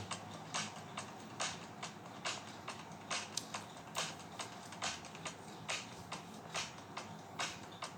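Faint, light clicks or taps on a smartphone as it is operated, about two to three a second and slightly uneven.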